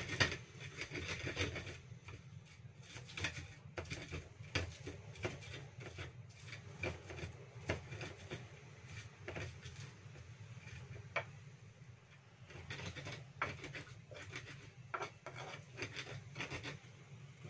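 Stone pestle grinding and crushing spices in a mortar (Indonesian ulek): an uneven run of scraping, rubbing strokes and small knocks as garlic, shallots and pepper are pounded toward a smooth paste.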